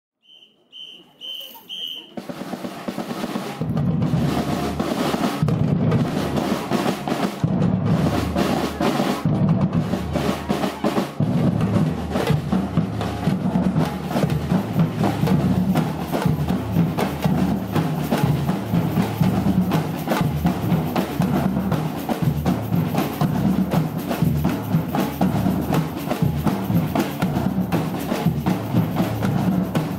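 Batucada samba drum ensemble: four short high whistle blasts count the band in, then surdo bass drums and snare drums come in about two seconds in and play a dense, steady samba rhythm.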